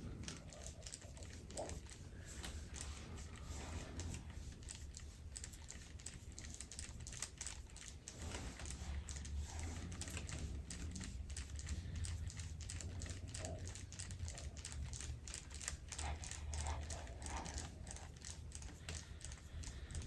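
Forearm pressing and gliding over bare skin in deep-tissue back massage: faint, quick, irregular little clicks and crackles of skin and tissue, with a steady low hum underneath.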